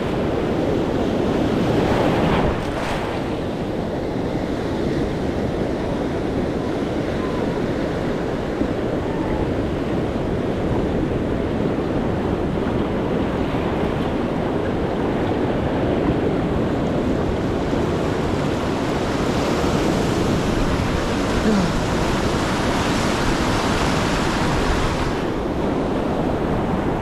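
Ocean surf breaking and washing ashore, a little louder for the first two seconds or so, with wind buffeting the microphone.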